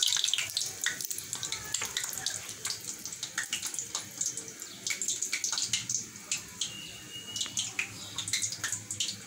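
Breaded chicken-and-potato chops deep-frying in hot oil in a kadai: a steady sizzle thick with small pops and crackles.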